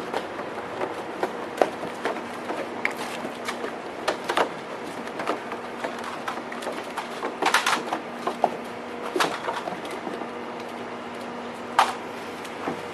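Razor blade scraping paint overspray off a vehicle's paint: irregular short scrapes and sharp clicks, with a cluster of quick strokes about halfway through, over a steady low hum.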